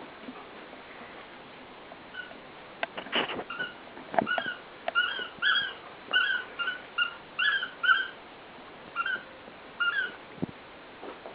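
Dog giving a run of short, high-pitched whines, about two a second, with a few sharp knocks among the first ones.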